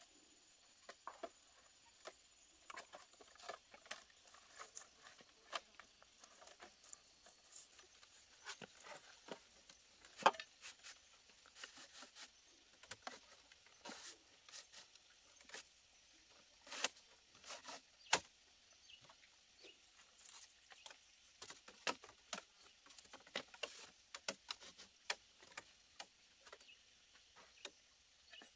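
Split bamboo strips clicking and knocking irregularly against each other and the frame as they are handled and woven into a bamboo wall panel, with a few sharper knocks among the light clicks.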